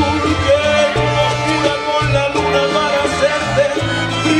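Live salsa band playing an instrumental passage, with a stepping bass line under held melodic lines.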